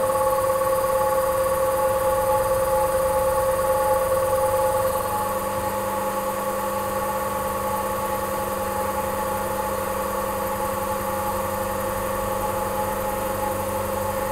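Servo-hydraulic road simulator running, shaking a car on its wheel pads: a steady mechanical hum with several held tones. It gets slightly quieter about five seconds in.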